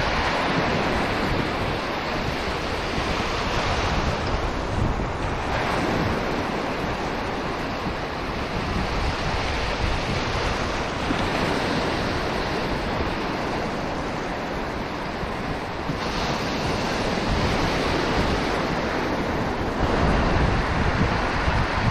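Surf breaking and washing up over shallow sand, with wind buffeting the microphone.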